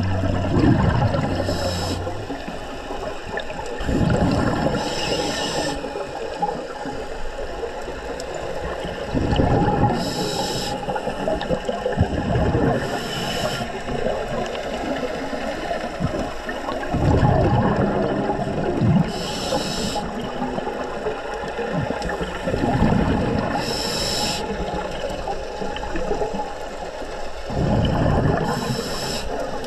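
Scuba regulator breathing heard underwater: a rush of exhaled bubbles and a short hiss of each inhale, repeating about every four to five seconds.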